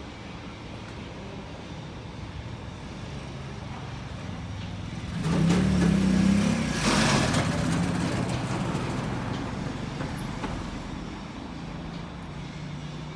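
Truck engine running steadily, revving up about five seconds in. A loud hiss comes with it, and then it eases back down to a steady run.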